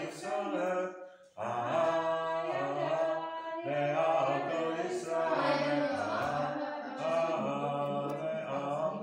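A boy chanting Hebrew prayer unaccompanied in a traditional liturgical melody, with long held notes and a short breath pause about a second and a half in.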